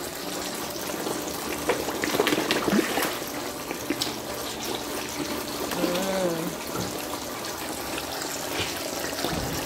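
Koi thrashing and slurping at the water surface as they take pellets, a continuous churning splash with many small plops and sucking clicks. A short vocal sound about six seconds in.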